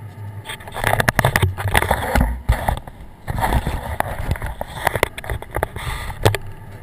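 Handling noise on the camera microphone: a run of knocks, rubbing and crackles with a brief low thump about two seconds in, over the steady low hum of the taxiing aircraft's engines. The knocking stops shortly before the end.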